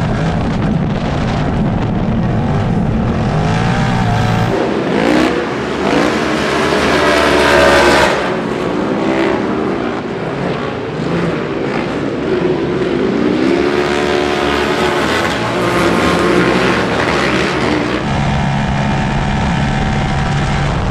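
Side-by-side (UTV) race car engine running hard on a dirt short-course track. It starts as a steady drone heard from the cockpit, then for most of the middle the pitch rises and falls repeatedly as the car revs through the corners. Near the end it settles back to a steady drone.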